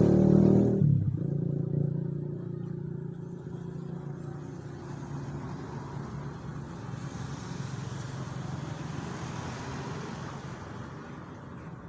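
A motor vehicle's engine, loud for the first second, then dropping away sharply and running on more quietly and steadily.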